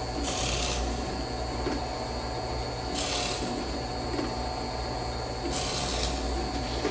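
Harbor Freight 8-inch benchtop drill press running with a steady hum and faint whine while a 6 mm brad point bit bores a series of holes in a narrow board. Each hole is a short rasp lasting about half a second, three in all, roughly two and a half seconds apart.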